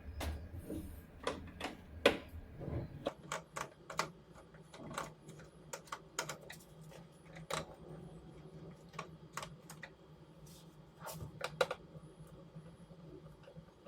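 Irregular light clicks and taps of hard parts being handled during work on a washing machine, some louder knocks among them. A low steady hum sets in about three seconds in.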